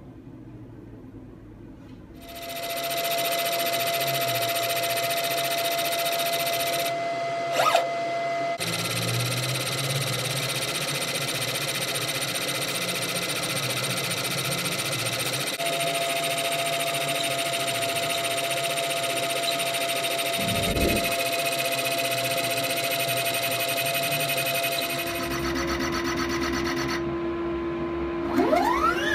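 VersaLaser engraver running while it engraves wood: a steady mechanical hum with several constant whining tones, starting about two seconds in. Near the end, whines rise and fall in pitch as the laser head moves.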